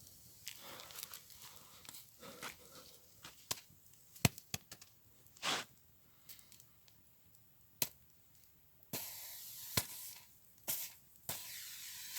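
An object heated in a campfire being struck to try to break it: several sharp, separate knocks with small crackles between them, and two longer stretches of hissy rustling noise near the end. The blows do not break it.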